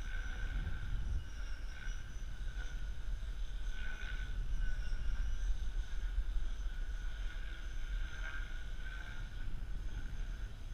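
A small aircraft flying overhead gives a steady high whine that wavers a little in pitch and swells now and then. Wind rumbles on the microphone throughout.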